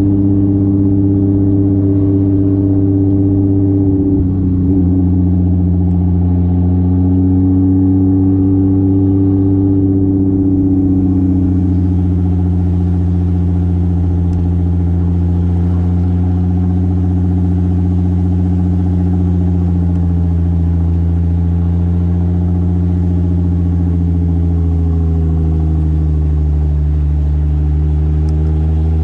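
Turbocharged 2JZ straight-six of a Toyota Soarer running at a steady, moderate engine speed while the car cruises, its note rising and falling only slightly. Tyre and road hiss grows a little about a third of the way in.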